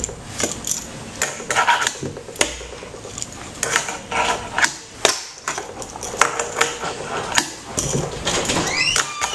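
Tech Deck fingerboard being pushed and flipped on a tabletop: a string of sharp, irregular clicks and taps from the small board and its wheels striking the table.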